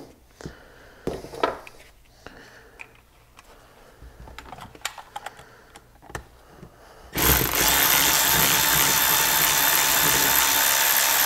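Light clicks and taps of metal parts being handled, then about seven seconds in a cordless electric ratchet starts and runs steadily with a whine, backing out the lever pivot bolt of a Brembo front brake master cylinder.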